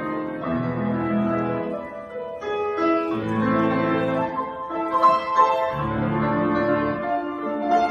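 Solo piano playing: a melody over low chords that are re-struck every second or two.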